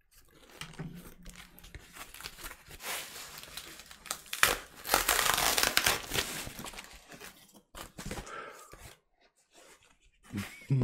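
Cardboard shipping box being cut and torn open, with brown kraft paper packing inside crinkling as it is pulled out; the tearing and crinkling is loudest for a couple of seconds about halfway through, then dies away near the end.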